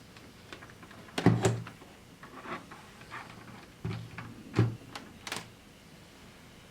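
Handling noise: a series of irregular knocks and clicks, with the loudest knocks about a second in and again just past the middle.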